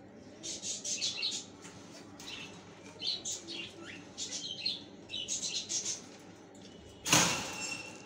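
Caged lovebirds giving bouts of short, high-pitched chirps. About seven seconds in comes one brief, loud rustling burst.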